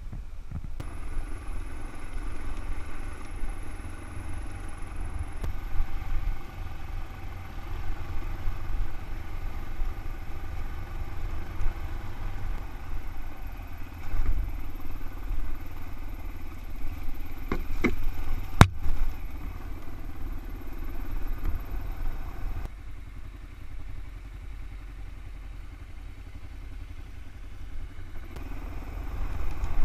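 Single-cylinder dual-sport motorcycle running along a gravel dirt road, its engine note under heavy low wind rumble on the bike-mounted microphone. The sound shifts abruptly several times, and there is one sharp click about two-thirds of the way through.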